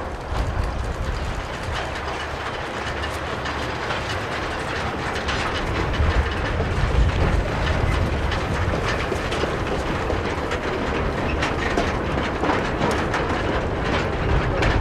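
Narrow-gauge steam train running past, with a steady rumble and many quick clicks from the wheels over the rail joints.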